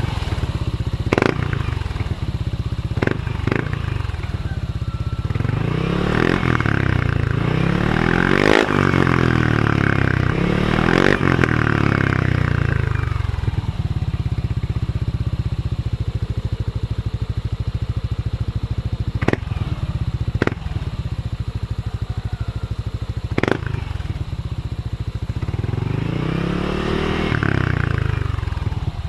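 Yamaha NMAX scooter's single-cylinder engine running through an aftermarket Apido exhaust pipe. It idles and is revved several times, the pitch rising and falling in the middle and again near the end. A few sharp knocks are heard along the way.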